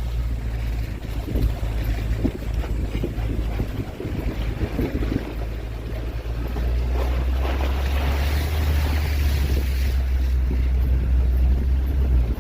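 A 4x4's engine running with a steady low hum while driving, under a loud rushing noise of water and wind. The rushing grows louder about two-thirds of the way through.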